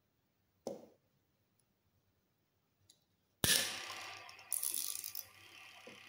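A washing-machine timer knob is turned with a short click. About three and a half seconds in, a magnetic contactor pulls in with a sudden loud clack and a single-phase motor starts, then runs steadily with a mechanical whirr.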